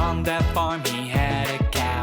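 Upbeat instrumental music with a steady beat, with no singing.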